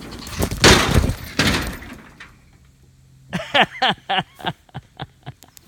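Wood cracking and crashing as a tree's felling hinge breaks and the tree comes down, a loud burst lasting about two seconds.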